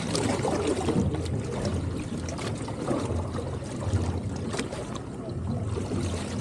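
Small fishing boat on the open ocean: a low hum that swells and fades every second or so, with water sloshing against the hull and a few light knocks.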